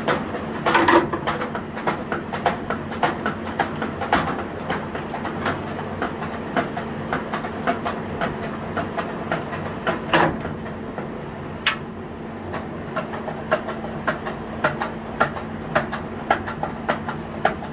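Metal clanks and rattles as a snowblower attachment on a lift table is eased into position, with many irregular knocks over a steady low hum.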